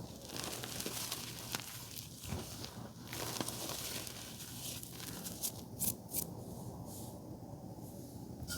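Blue reformed gym chalk being crushed, crumbling and crunching with a steady gritty crackle and a cluster of sharper snaps just past halfway.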